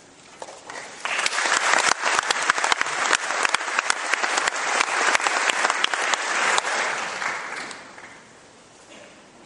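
Large audience applauding. The clapping swells about a second in and dies away near the end.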